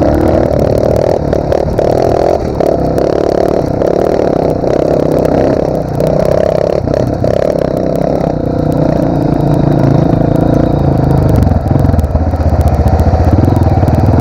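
Two off-road motorcycles running at riding speed, the nearer being the camera rider's own dirt bike and the other a Pro Tork TR100F mini bike, with rattling from the rough dirt track. About eight seconds in, the engine sound turns lower and steadier as the bikes slow.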